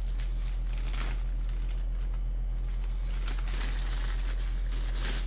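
Clear plastic bag crinkling in bursts as a radio battery pack is worked out of it by hand, over a steady low hum.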